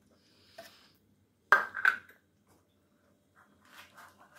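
Two sharp knocks about a third of a second apart as a tin of cat food is knocked against a plastic feeding tray, followed near the end by faint light clicks.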